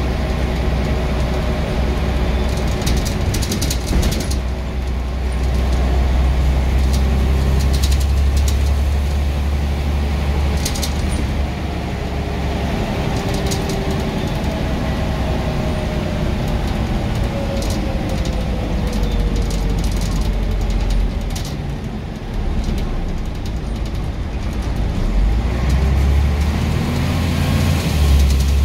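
Scania N94UB single-decker bus running on the road: a steady low engine drone with a transmission whine that glides up and down in pitch, scattered rattles and ticks, and the engine pulling harder near the end.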